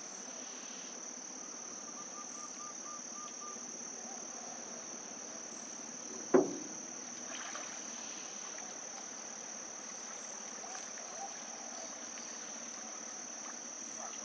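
Steady, high-pitched insect chorus, with a short run of faint pips about two seconds in and a single sharp knock about six seconds in.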